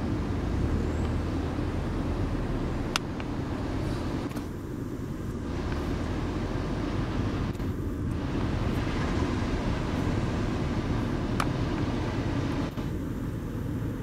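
Steady low rumble of coastal wind on the microphone mixed with the wash of surf breaking below, with two faint clicks about three seconds in and near the end.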